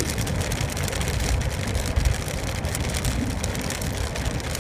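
Steady road noise inside a car driving on a wet road in heavy rain: a low rumble with tyre hiss and a scatter of small raindrop ticks.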